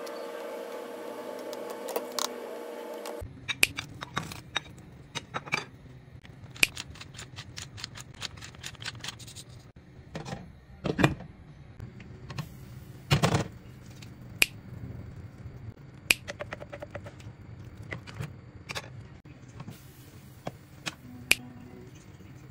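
Kitchen utensils and a pot lid clinking and tapping against a stainless steel saucepan on a gas hob, in scattered clicks with a few heavier knocks in the middle. A steady hum runs under the first three seconds or so.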